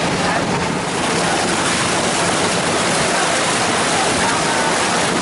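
Glass-bottom tour boat under way on a choppy sea: a steady rush of water and wind, with a low, even engine hum beneath it.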